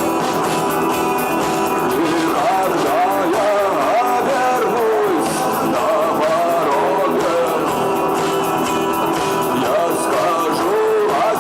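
Rock music: a singer's melody over guitar-led band accompaniment, playing continuously.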